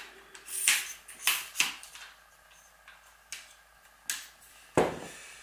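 A camera tripod being opened out: about six sharp clicks and clacks as its legs and locks are handled, with a heavier knock near the end.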